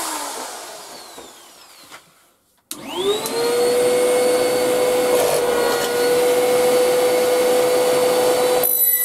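A motor whine falls away and fades out, then after a moment of silence a shop vac extractor starts up about three seconds in: its whine rises quickly to speed and then runs steadily at a high pitch.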